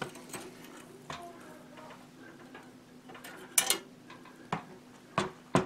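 Steel traps being lifted and flipped over in a tub of dip: a few separate metal clinks and knocks of trap jaws and springs, the loudest about three and a half seconds in, over a faint steady hum.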